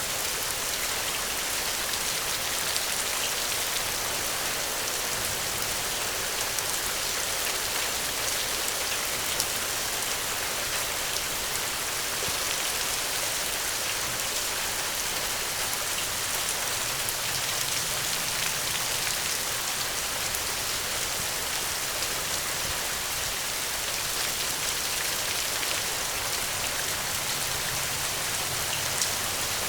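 Steady rainfall, an even hiss of drops on a surface with scattered individual drop ticks.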